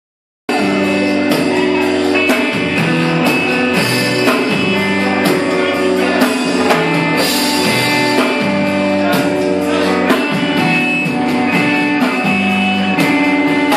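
Live rock band playing, with a drum kit keeping a steady beat under sustained melodic notes. The music cuts in abruptly about half a second in.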